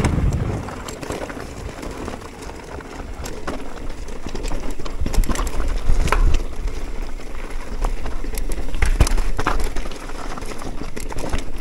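Mountain bike rolling down a rocky gravel singletrack: tyres crunching over stones, with frequent sharp knocks and rattles from the bike, and low wind buffeting on the microphone.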